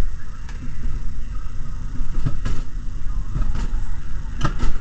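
Mountain coaster sled rolling fast down its tubular steel rail track: a steady low rumble from the wheels and rushing air, broken by a few sharp clacks, two of them close together near the end.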